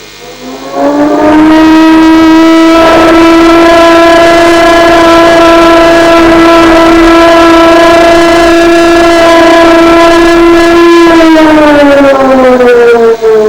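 Russian civil defense siren sounding as an emergency alert alarm. It winds up to a steady wail in the first second or so, holds for about ten seconds, then winds down near the end. It is boosted so loud that it distorts.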